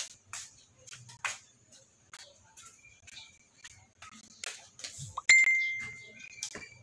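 Scattered light clicks and taps, then a single sharp ding about five seconds in that rings on at one clear pitch for about a second before fading.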